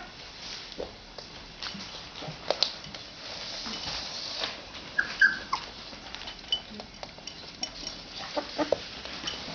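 An 18-day-old Labrador puppy whimpering with short, high-pitched squeaks: a couple about halfway through and a quick cluster near the end, among small clicks and rustles.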